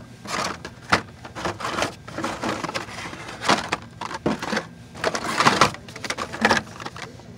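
Hot Wheels blister-card packages being rummaged through in a cardboard display box: irregular rustling, scraping and clacking of plastic blisters and card stock.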